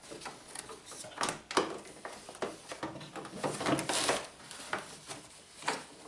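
Plastic door trim panel being handled against a car's rear door as it is refitted: irregular light knocks, scrapes and rustles.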